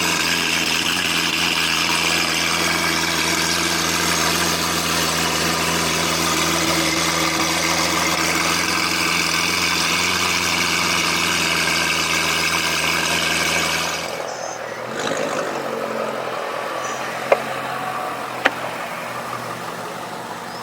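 Lamborghini Aventador SV's V12 running at a steady idle through a newly fitted FI valved exhaust. About 14 seconds in it drops to a quieter, softer running sound, and two sharp clicks follow.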